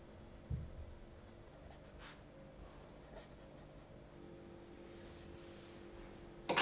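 Ballpoint pen writing on a notebook page: faint, soft scratching strokes. A soft low thump comes about half a second in, and a sharp knock near the end.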